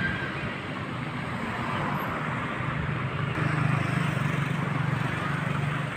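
Road traffic: cars driving past on a street, a steady low rumble of engines and tyres that grows louder a little past halfway as a car passes close.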